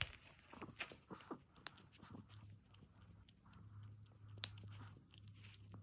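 Dog chewing dry kibble: faint, scattered crunches and clicks, with a faint low hum in the background from about halfway.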